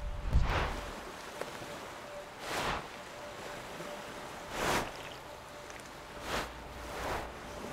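Sea waves washing in, five short swells of rushing surf over a low steady rumble.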